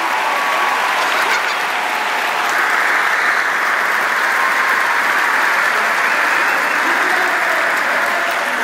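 A large concert-hall audience applauding, a dense steady clapping that swells about two and a half seconds in and eases a little near the end.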